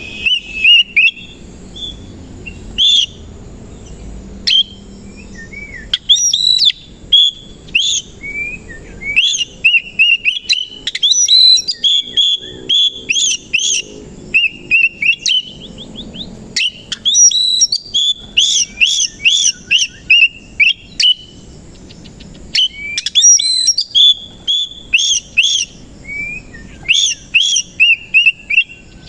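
Oriental magpie-robin (kacer) singing a loud, varied song of rapid whistled phrases and chirps, delivered in bursts with short pauses between them.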